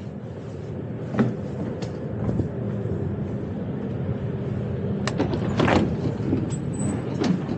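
Steady hum of a parked tram's onboard equipment, with a few clicks and knocks; the loudest, about five seconds in, comes as the door-request button on the tram's outside is pressed.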